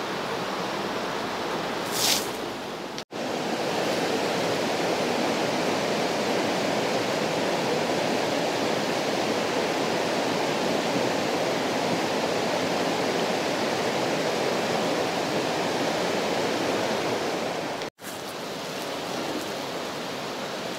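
River water rushing over rocks, a steady rush with no pitch that cuts abruptly to a louder stretch about three seconds in and back to a quieter one near the end. A brief hiss sounds about two seconds in.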